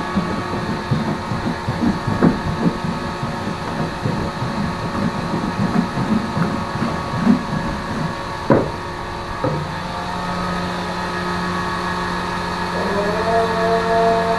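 Clatter and knocks of metal and plastic bowls being handled over a steady mechanical hum. Near the end a second, higher steady whine comes in.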